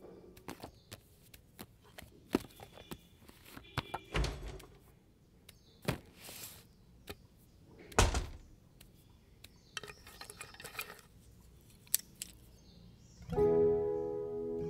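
Scattered clicks, knocks and thuds of things being handled in a room, the heaviest thud about eight seconds in as a wooden cupboard door is opened, with some rustling a little later. Music comes back in near the end.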